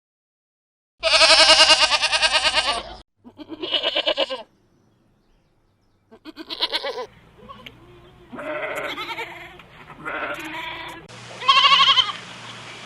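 Goats bleating: one long, wavering bleat about a second in, then several shorter bleats. The calls come as separate recordings that start and stop abruptly, with a brief silence between some of them.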